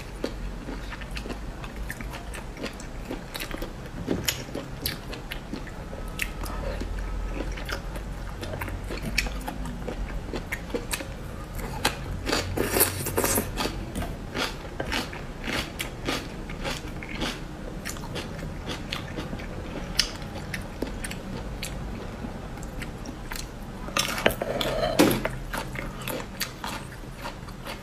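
Close-miked eating of spicy marinated snails: many small wet clicks of shell and toothpick, chewing, and two louder sucking stretches, one about twelve seconds in and one near the end.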